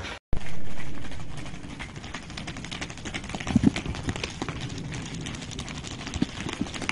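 A group of miniature horses trotting on concrete: many quick, overlapping hoof clip-clops. A loud rush of noise at the start fades over about two seconds.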